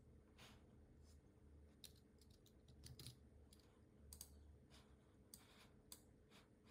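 Faint computer keyboard keystrokes and mouse clicks, a scatter of irregular separate clicks.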